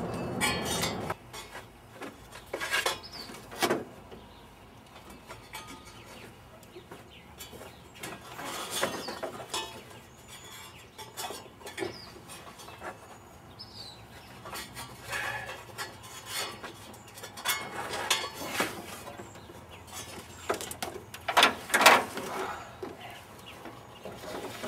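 Scattered metal clinks and knocks of hand tools against engine parts while the drive belt is worked off a Ford 302 V8, the loudest knocks coming a few seconds before the end. Faint bird chirps in the background.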